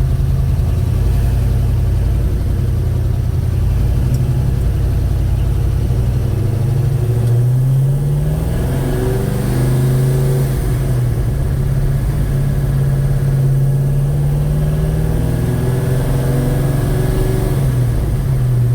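Chevrolet 307 small-block V8 running under load, its pitch rising about halfway through, holding, then dropping back near the end. Its valve train is very loud and clattery, diesel-like, a noise later traced to mismatched valve springs and retainers.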